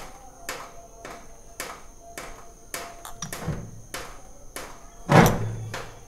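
Metal clinks and knocks from a Suzuki Shogun two-stroke cylinder barrel being worked down over the piston onto the crankcase studs, with a louder thud about five seconds in.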